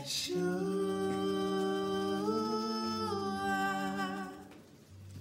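A voice holding one long, unaccompanied sung note at the end of a worship song. The pitch steps up about two seconds in and drops back a second later, and the note fades out near the end.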